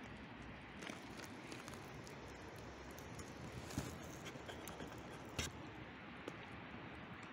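Faint, steady outdoor background noise with scattered light clicks, and a sharper knock about four seconds in and another about five and a half seconds in.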